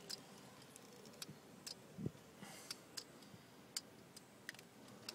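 Faint, sharp, irregular clicks, about two a second, over a quiet steady background.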